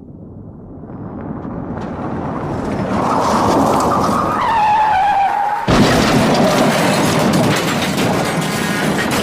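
Car crash sound effect: a car's noise swells as it approaches, its tyres screech in a falling squeal, then just past halfway a sudden loud impact hits and harsh crashing noise carries on.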